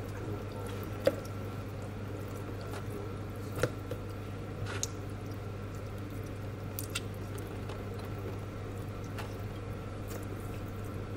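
Wet raw chicken pieces being handled and lifted out of a plastic bowl of rinse water: soft squelches and drips, with a few faint clicks, over a steady low hum.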